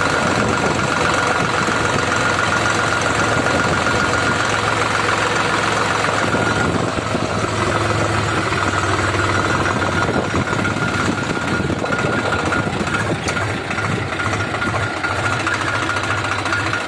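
Tractor diesel engine running steadily as the tractor drives along, heard close up from the driver's seat, with a steady high-pitched whine over the engine note.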